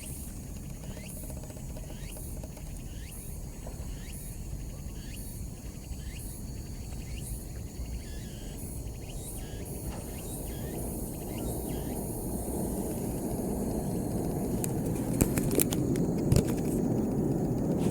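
Outdoor ambience: a steady low rumble that grows louder over the second half, with faint high chirps repeating about once a second and a few sharp clicks near the end.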